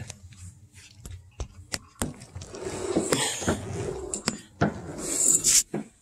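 Handling and movement noises: a few sharp clicks and knocks, then a rustling, rubbing noise that grows louder toward the end.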